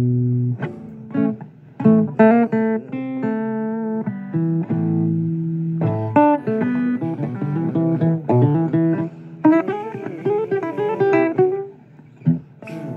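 Blues guitar instrumental break between sung lines: single plucked notes and runs, with bent notes about ten seconds in.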